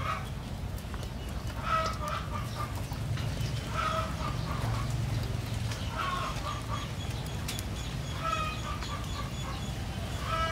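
Chickens clucking, short calls coming about every two seconds.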